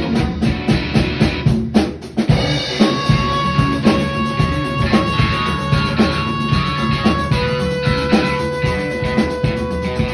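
A band playing a rock song, the drum kit and guitar loud and driving. Near two seconds in there is a brief break, and after it long held high notes ring over the drums.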